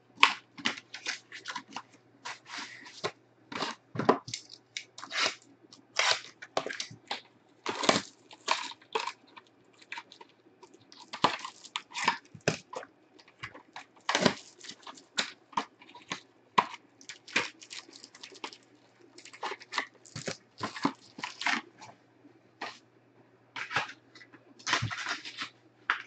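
Plastic trading-card pack wrapper and box packaging being crinkled and torn open by hand, in many short, irregular crackling bursts.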